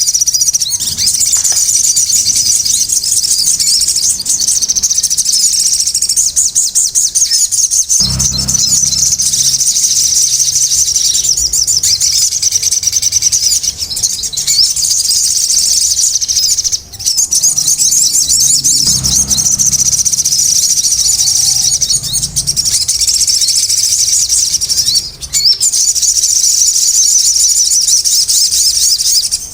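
A sogon (sunbird) singing a fast, continuous, high-pitched twittering chatter with only brief breaks. This is the 'ribut' (busy, noisy) sogon song that keepers play to stimulate caged birds to sing.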